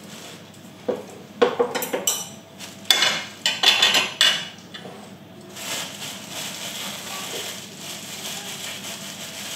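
Kitchen utensils and dishes clinking and knocking, a quick irregular run of strikes in the first half. Then a steady hiss sets in and holds.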